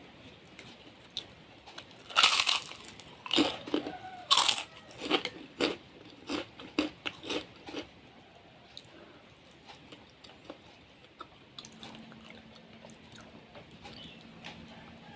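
Person biting and chewing crunchy food in a run of loud, crisp crunches for several seconds, then only soft chewing sounds. A faint steady hum starts near the end.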